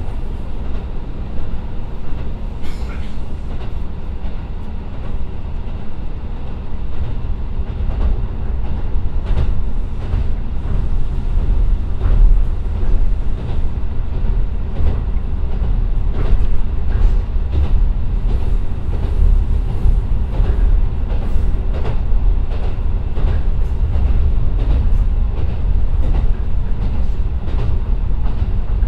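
Cab-car interior running sound of a JR Kyushu KiHa 125 diesel railcar under way: a steady low rumble from its Niigata DMF13HZ diesel engine and running gear, with wheels clicking over rail joints. The clicks come thicker from about eight seconds in.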